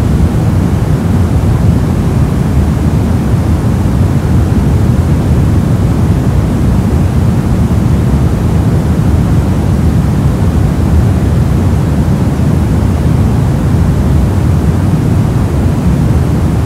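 Steady static noise, deep rather than hissy, with most of its weight in the low end and no change in level.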